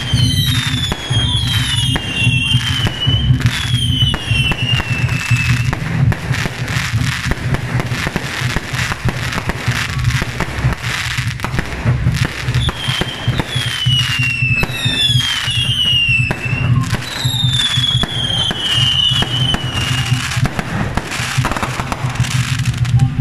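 Aerial fireworks going off in quick succession: a dense run of bangs and crackles, with several overlapping whistles that fall in pitch, mostly in the first six seconds and again from about twelve to twenty seconds in. A steady low hum runs underneath.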